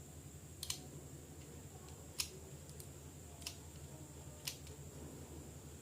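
A few faint, sharp clicks and taps of plastic action figures being handled, spaced about a second apart, over a low steady room hum.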